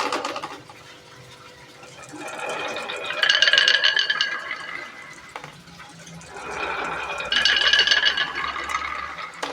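Marbles rolling and clattering down a wooden HABA marble run, in two waves that each build up to a loud rattling peak and then die away.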